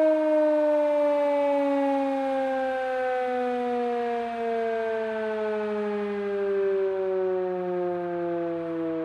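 Sterling M10 electromechanical siren winding down, its pitch falling steadily and its level slowly fading.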